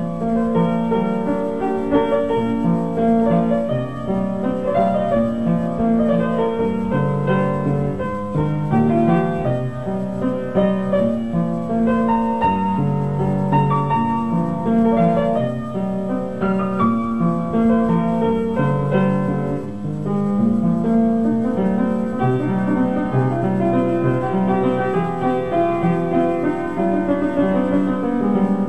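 Ambient black metal keyboard music: a keyboard playing sustained low chords that change about once a second.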